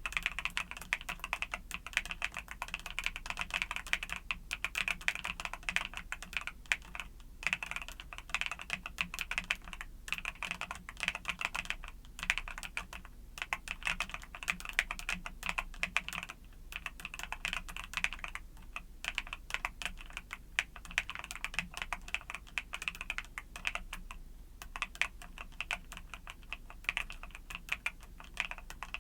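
Continuous typing on a mechanical keyboard with YUNZII Cocoa Cream switches: rapid, closely spaced keystroke clicks in bursts, broken by brief pauses every second or two.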